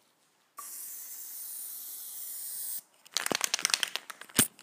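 PlastiDip aerosol can spraying in a steady hiss for about two seconds, starting about half a second in. Then a quick run of sharp rattling clicks as the can is shaken, its mixing ball knocking inside, ending with one louder click.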